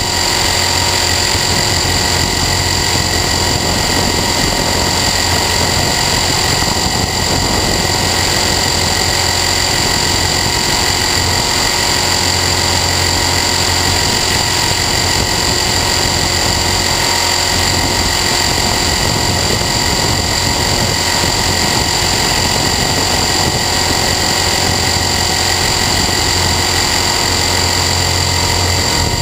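Align T-Rex 450 Sport electric RC helicopter in flight, heard close from its onboard camera: a steady high whine from the brushless motor and gears over a low, even hum from the rotor.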